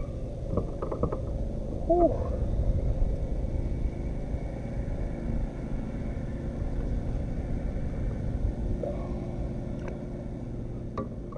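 Steady low rumble of wind buffeting a kayak-mounted action camera's microphone, with a few light knocks.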